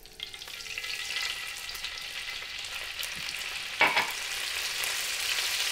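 Lemon juice poured into hot oil in a frying pan, sizzling and frying steadily after growing louder over the first second. A brief louder sound comes about four seconds in.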